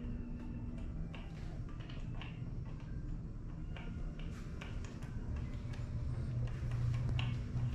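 Room tone: a steady low hum, growing stronger near the end, with scattered light clicks and shuffles.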